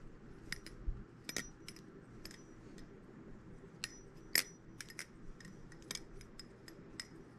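Hom Design I-Basilisk balisong being flipped by hand: an uneven run of sharp, crisp metallic clicks as the handles swing and strike, the loudest about halfway through. Several clicks carry a brief high ring.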